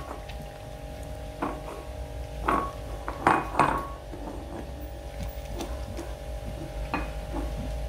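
A Rottweiler eating from a ceramic bowl, its muzzle knocking and clinking the bowl against the tile floor in several irregular clinks, the loudest pair a little past three seconds in.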